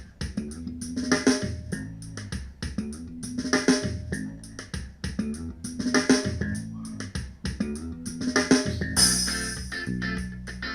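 Music with drums, bass and guitar playing through an XDOBO Draco Mini Bluetooth speaker in a sound test. A heavy beat accent recurs about every two and a half seconds, and the music turns brighter and busier about nine seconds in.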